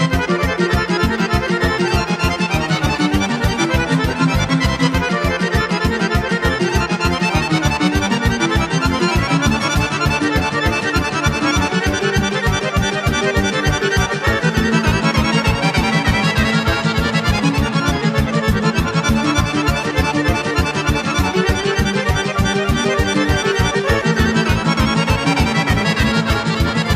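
Instrumental Serbian kolo led by accordion, with a band keeping a steady, fast, even beat beneath the accordion melody.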